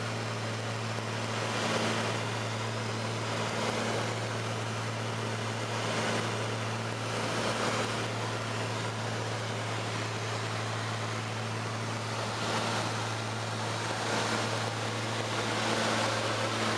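Light aircraft's piston engine and propeller droning steadily inside the cabin, a constant low hum over the rush of airflow.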